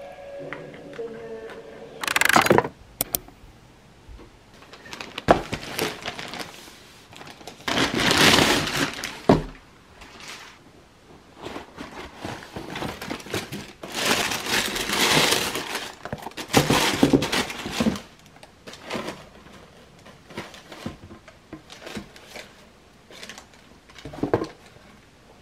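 Cardboard shoebox and the tissue paper inside it being handled: irregular bursts of rustling, crinkling and scraping with a few sharp knocks.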